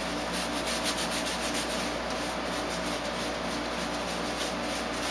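A paintbrush scrubbing paint onto a textured polystyrene (styrofoam) ceiling tile: a steady scratchy rubbing of bristles on foam, made of quick repeated strokes.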